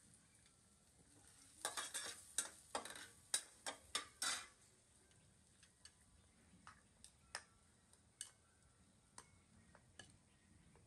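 Metal utensils clinking on cookware: a spatula scraping and tapping against a steel wok in a quick run of clinks about two to four seconds in, then a spoon clinking now and then against a bowl of rice.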